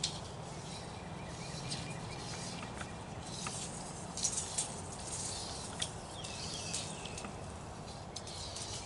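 Irregular light clicks and rattles from a Craftsman 25-foot steel tape measure being run out and let down the tree trunk, over a steady background hiss.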